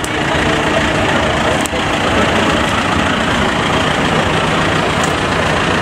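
Diesel engine of a John Deere tractor running steadily close by as it rolls slowly past.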